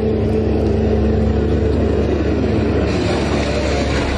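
Minivan camper driving with the side window open: engine and road rumble in the cabin, a steady engine hum that fades about halfway through, and wind noise rising toward the end.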